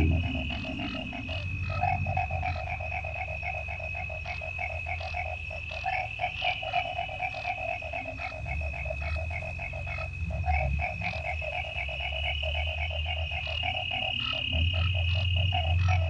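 Night chorus of frogs calling in fast, pulsing trills over a steady high-pitched cricket trill, with a deep low rumble swelling and fading underneath.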